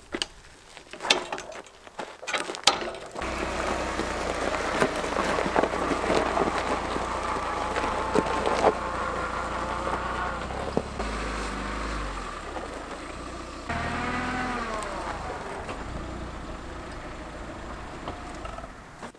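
Metal clanks and knocks as the old log splitter is dragged into position, then a small off-road buggy's engine starts running steadily and moves up. About fourteen seconds in, a drawn-out falling farm-animal call sounds over the engine.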